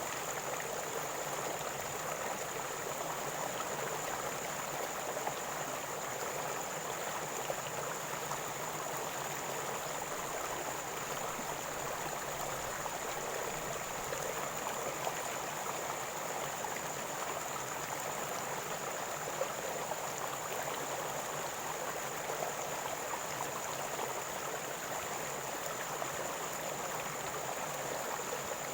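River water gurgling, a steady rushing flow.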